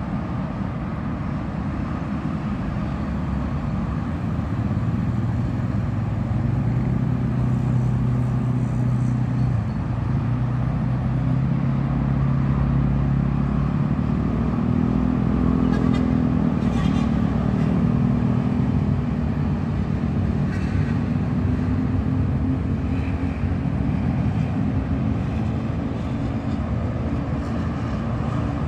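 Steady rumble of toll-road traffic, with the engine drone of passing heavy vehicles swelling louder at times.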